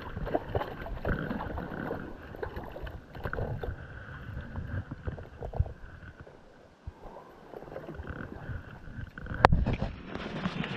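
River water splashing and sloshing around a large trout being handled in the landing net. There is a single sharp click about nine and a half seconds in.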